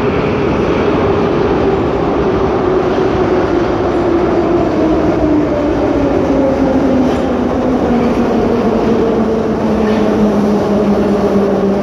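Moscow metro train of the 81-717 'numbered' type pulling into the platform: a steady rumble of wheels on rails, with the traction motors' whine falling steadily in pitch as the train slows to a stop.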